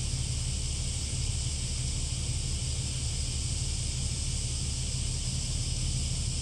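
Steady wind rumble on the microphone with a constant high hiss over it, unchanging throughout.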